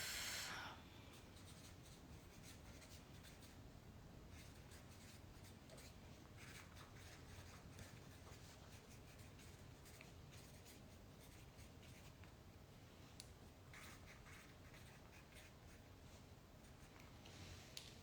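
Faint scratching of a marker pen writing on a poster, in short irregular strokes.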